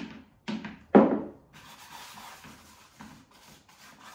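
Three sharp knocks about half a second apart, the last the loudest, then a steady rustling and rubbing as hands work through dry, fine groundbait mix in a plastic tub.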